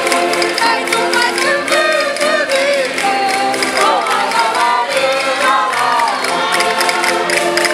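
Concertinas (Minho button accordions) playing steady held chords, with women singing a Minho folk song over them in a group.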